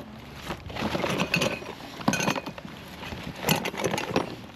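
Junk in a kerbside rubbish pile being rummaged through by hand: irregular clinks and knocks of hard items being moved and bumped together, in several clusters.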